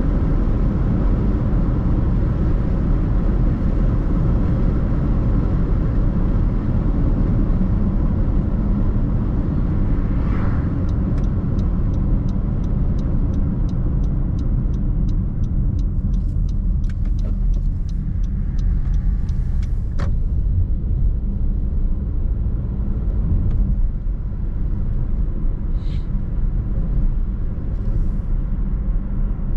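Car driving along a road: a steady low rumble of engine and tyre noise, with a run of fast light ticks about a third of the way in and a few single clicks later.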